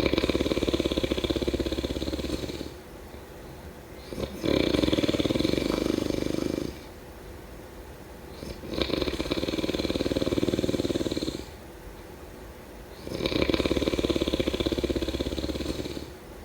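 A person snoring: four long, rattling snores about two and a half seconds each, coming roughly every four and a half seconds, with quieter gaps between.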